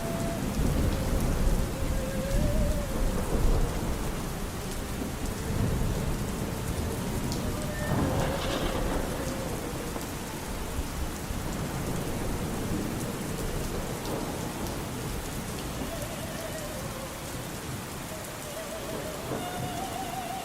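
Steady heavy rain with low rumbling thunder, loudest in the first few seconds. Under it, faint, muffled opera singing with vibrato.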